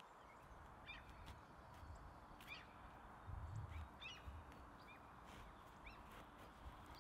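Faint outdoor birdsong: short high chirps from small birds every second or so, over a soft low rumble.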